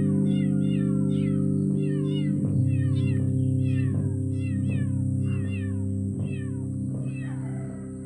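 Kittens mewing over and over, short high-pitched cries several a second that overlap, over background music of sustained low notes.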